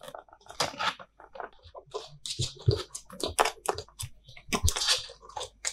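Kitten suckling milk from a feeding bottle's nipple: irregular sucking and smacking clicks.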